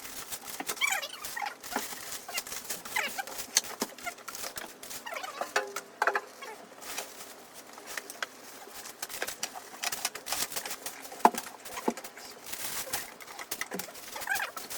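Birds calling in short, curving calls, mixed with many sharp clicks and a light patter.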